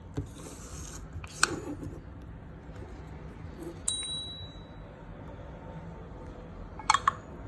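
Nokia 301 mobile phone between ringtone previews: a single click about one and a half seconds in, a short high ding about four seconds in, and a quick double click near the end, over a low hiss.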